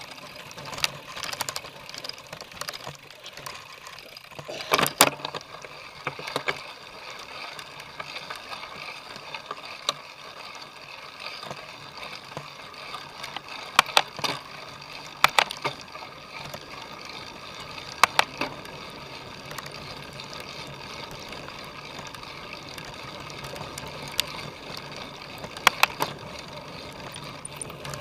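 Cyclocross bike ridden hard: a steady rolling noise of tyres and drivetrain, broken every few seconds by sharp clacks and rattles from the bike, loudest about five seconds in and again around fourteen, fifteen, eighteen and twenty-six seconds.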